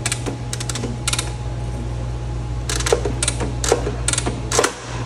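Irregular metallic clicks and knocks from the manual spring-charging mechanism of a Square D low-voltage power circuit breaker as its closing spring is charged, over a steady low electrical hum that drops out briefly near the end.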